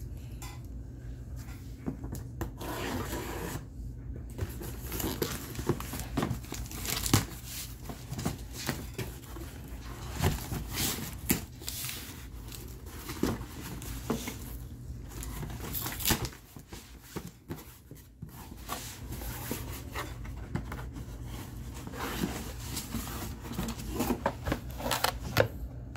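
Cardboard shipping box opened by hand: packing tape ripped off the cardboard and the flaps pulled open, with irregular rustles, scrapes and knocks throughout.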